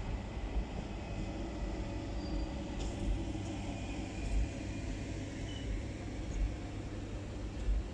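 VR double-deck InterCity coaches rolling past at low speed: a steady low rumble of steel wheels on the rails, with a few faint clicks.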